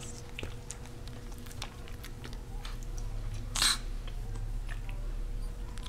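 A Japanese Chin puppy playing at a person's hand on a tile floor: scattered small clicks and scuffles, with one louder short burst of noise about three and a half seconds in.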